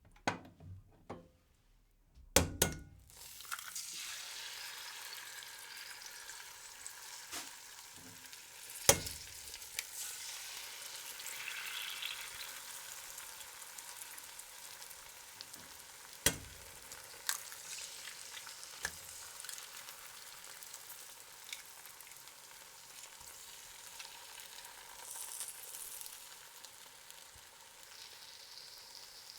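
Eggs frying in a pan: after a few small clicks and a couple of loud knocks about two and a half seconds in, a steady sizzle starts and runs on, broken now and then by sharp pops.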